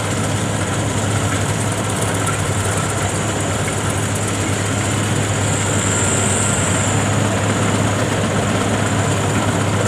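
WD102 Pro rice combine harvester's engine and threshing machinery running steadily as it cuts through standing rice: a constant low drone with a thin high whine above it.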